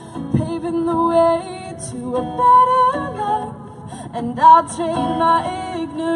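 A young woman singing a song over her own strummed acoustic guitar, the melody moving and held on sustained notes.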